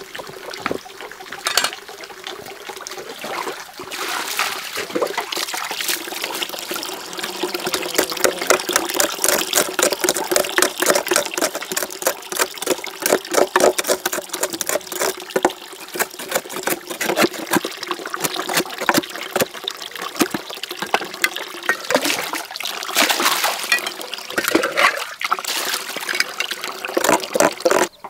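Water running from a bamboo pipe and splashing into a hollow-log basin and metal pots, with hands working in the water; an uneven, continuous splashing that grows louder a few seconds in.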